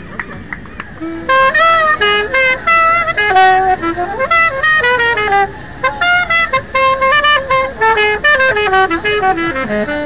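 Solo alto saxophone coming in about a second in with a fast run of short notes that climb and fall, ending on a falling phrase.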